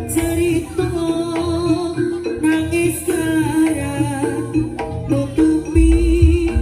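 Live jaranan music: a melody held in long, wavering notes over drums and low gong strokes, with jingling bells and cymbal-like washes coming in at the start and again about two and a half seconds in.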